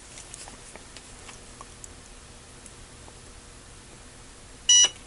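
Faint taps of the welding tips being handled and set on a nickel strip, then near the end one short loud beep from the DH30 battery spot welder as it fires its automatic weld.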